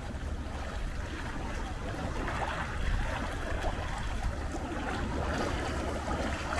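Wind buffeting the camera microphone: a steady low rumble with a rushing hiss above it, a little stronger from about two seconds in.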